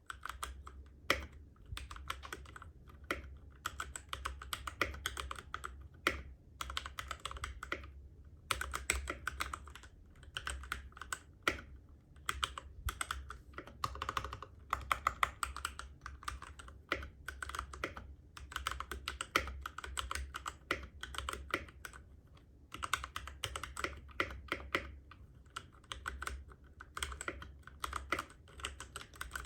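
Typing on a Keychron K6 mechanical keyboard with stock Gateron G Pro Brown switches: fast, continuous key clicks, with two short pauses, about a third of the way in and about three quarters of the way in.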